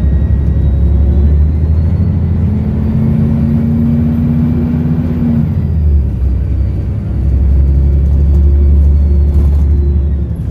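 Volvo B7RLE bus's diesel engine pulling under load, a deep drone with a thin high turbo whistle over it that rises and fades in the middle. About six seconds in the drone eases off briefly, then builds again.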